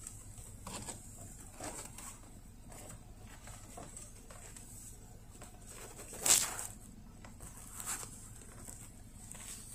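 Faint rustling and handling noise from a jacket sleeve moving close to the microphone inside a car cabin, in short scattered rustles with one louder rustle about six seconds in, over a faint steady high whine.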